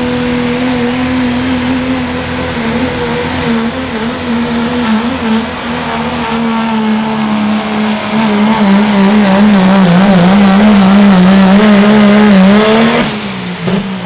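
Pro stock diesel pickup engine held wide open under load while pulling a sled, with a loud, steady high engine note that slowly sags as the pull goes on. Near the end the throttle comes off and the revs fall away.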